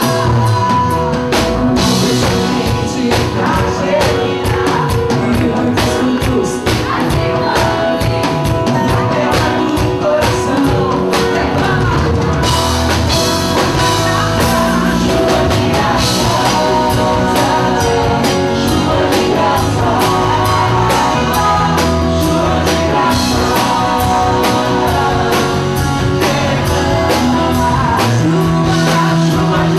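Live Catholic rock-worship music: a woman singing into a microphone over a band with drum kit and guitars, with a steady beat throughout.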